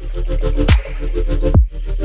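Background electronic music with a steady beat and deep, falling kick drums.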